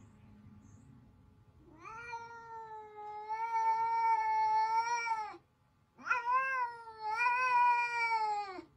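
Domestic cat yowling in a standoff with another cat: two long, drawn-out wails, the first about three and a half seconds, the second about two and a half after a short break, each sagging in pitch as it ends. It is a threat yowl, a warning to the other cat.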